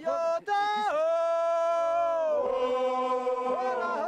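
A man singing a chant-like song in long, drawn-out notes, a short note first and then two long held ones, the second lower. It is a herder's song of joy for the Meskel festival.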